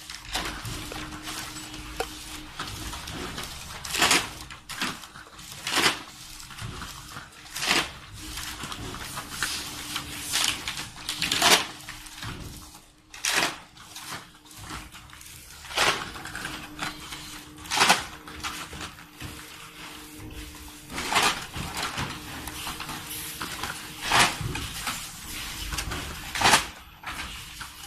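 Automatic flat-surface labeling machine and its conveyor running: a steady motor hum with sharp plastic-and-metal clacks every one to three seconds as the trays pass through.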